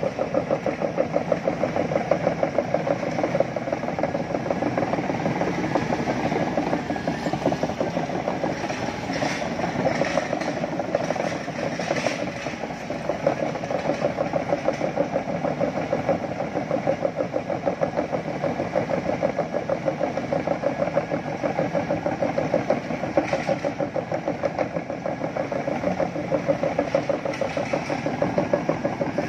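Sumitomo hydraulic crawler excavator travelling on its steel tracks: the diesel engine runs steadily under a continuous rhythmic clanking of the track links.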